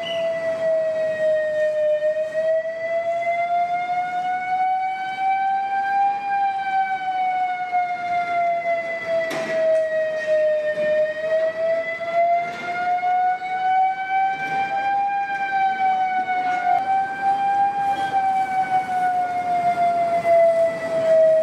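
Emergency siren sounding for an earthquake mock drill: a steady wailing tone that slowly rises and falls in pitch, about one cycle every nine seconds. There is one brief click about nine seconds in.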